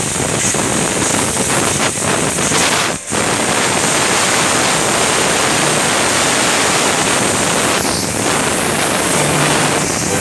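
CNC laser cutting machine cutting sheet metal: a steady, loud hiss from the cutting head as it throws sparks, broken off briefly about three seconds in.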